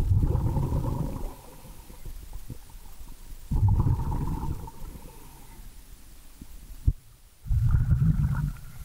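A scuba diver's exhaled bubbles, heard underwater: three bursts about four seconds apart, each lasting about a second. There is a single sharp click shortly before the last burst.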